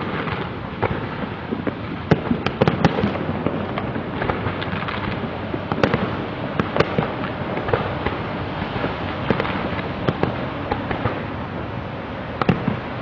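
Fireworks display: a continuous barrage of crackling and popping bursts with many sharper reports scattered through it, bunched together about two to three seconds in and again near the end.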